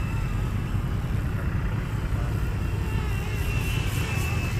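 FW450 electric RC helicopter in flight: a steady rotor and motor hum with a thin, high motor whine held level throughout.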